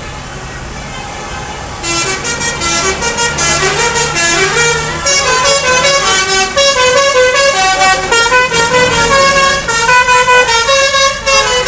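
Basuri musical air horn, a telolet-style vehicle horn, playing a fast tune of short notes at changing pitches; it starts about two seconds in and keeps going. Before the tune a low engine hum is heard.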